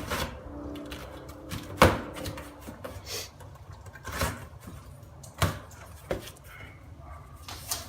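A cardboard shipping box being opened and its contents handled: scattered knocks and clicks over rustling, the sharpest knock about two seconds in.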